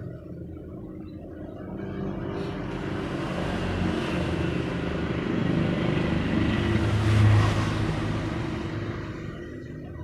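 A motor vehicle passing by. Its engine and road noise build over several seconds, peak about seven seconds in, then fade away.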